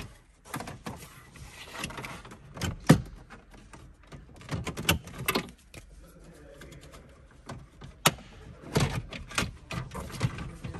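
Plastic dashboard trim around a Mercedes CLA's centre air vents being handled and pried with a plastic trim tool: irregular clicks, knocks and rattles as its retaining clips are worked loose.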